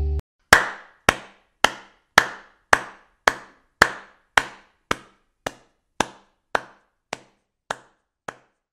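A steady series of sharp knocks, a little under two a second, about fifteen in all, growing gradually fainter.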